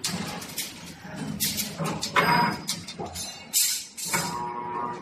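Automatic CNC wire bending machine running: an uneven string of mechanical clatter as the wire is fed and bent.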